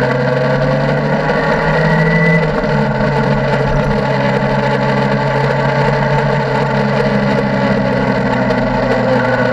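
Motorcycle engine running steadily under way, with a brief change in engine note about two seconds in.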